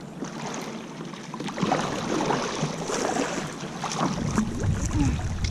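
Water splashing and churning against the hull of a plastic sit-on-top kayak, with many short clicks and slaps; wind rumbles on the microphone from about four seconds in.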